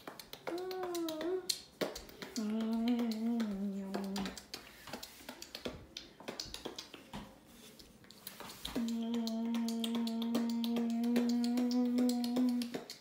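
A person beatboxing: short hummed notes that bend up and down, mixed with quick clicks and pops, then a quieter stretch of clicks alone, and near the end one long steady hummed note with clicks keeping an even beat over it.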